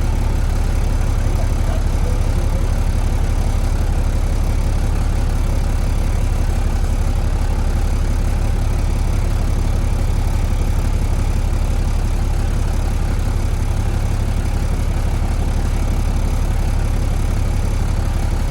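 Semi truck's diesel engine idling steadily, a deep even rumble, while the truck sits waiting to back in.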